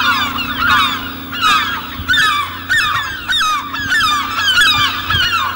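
A flock of birds calling, many short overlapping honking calls one after another, over a steady low hum.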